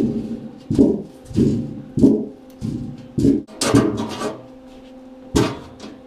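Work boots stamping on a scored sheet of 11-gauge mild steel laid over a pit, forcing it to bend along the score lines: a run of about eight heavy thuds with a metallic clatter, roughly one every half-second to second. A faint steady hum runs underneath.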